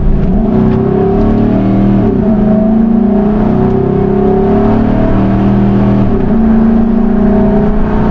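Car engine running while driving, heard from inside the vehicle, over steady road rumble; its pitch glides and steps a few times, about two and six seconds in, as it speeds up and changes gear.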